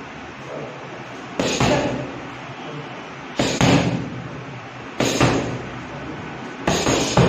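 Boxing gloves smacking into focus mitts during pad work: about six sharp smacks, one every second or two, some in quick pairs, each with a short echo.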